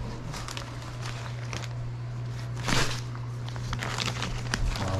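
Crinkling and rustling of vacuum-sealed plastic bags of fish fillets being handled and packed, with scattered clicks and a louder rustle near the middle, over a steady low hum.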